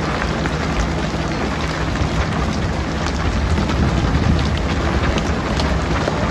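A small boat's engine running steadily with a low drone, under a loud, even rush of water and wind noise with scattered crackles.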